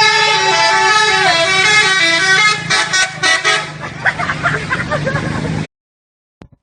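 Indonesian bus "telolet" musical horn playing a multi-note tune with a sliding tone, then a few short toots, followed by shouting voices. The sound cuts off abruptly near the end.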